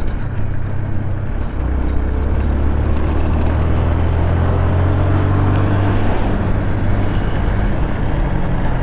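Honda CB 300R's single-cylinder engine running steadily while the motorcycle is ridden along the road, with rushing wind noise from riding. It gets a little louder about a second and a half in.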